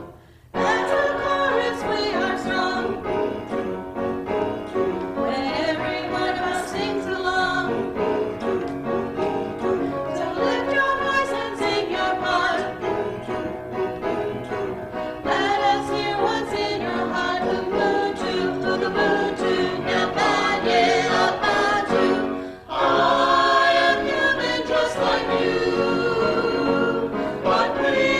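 A small mixed choir of men and women singing a hymn together, with short pauses for breath about half a second in and again about 23 seconds in.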